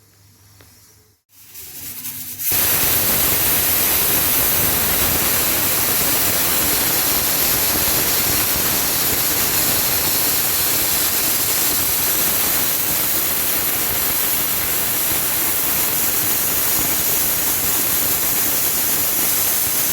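Indian stovetop pressure cooker whistling: steam venting through the weight valve in a loud, steady hiss that comes in about two seconds in and cuts off abruptly near the end. It is the whistle counted to tell when the colocasia roots inside are cooked.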